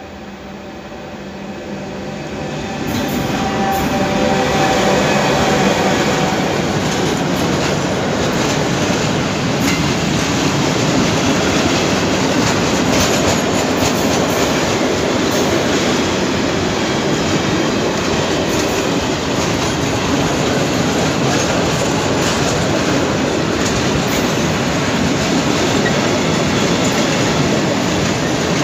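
Freight train approaching and passing close by: the sound swells over the first few seconds, with a few steady tones as the locomotive nears, then becomes a steady loud rumble and clatter of wheels on the rails as a long string of open freight wagons rolls past.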